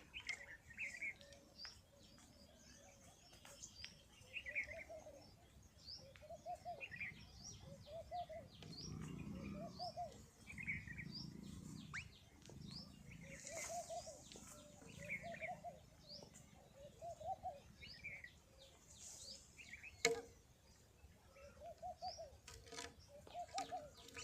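Birds calling over and over: short low calls in small groups of three or four, mixed with higher chirps and quick ticks. There is one sharp click about twenty seconds in.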